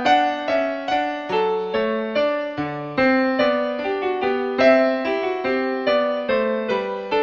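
Background piano music, single notes and chords struck at a steady, unhurried pace.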